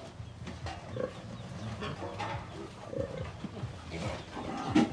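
Penned sows grunting in short, irregular calls, with one louder call near the end.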